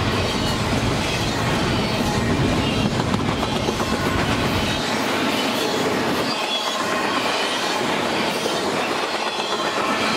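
Double-stack intermodal well cars of a freight train rolling past close by, steel wheels clattering over the rail joints in a steady loud rush. The deep rumble drops away about halfway through.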